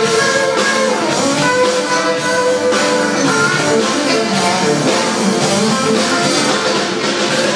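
Live smooth-jazz band playing: electric guitar, electric bass, drums and keyboards, with the guitar to the fore.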